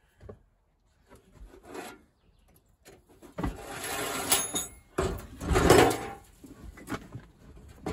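Heavy metal scraping and rubbing as a cast-iron Logan lathe is wrestled and shifted by hand: a few small knocks, then two long scrapes about three and a half and five seconds in, the second one loudest.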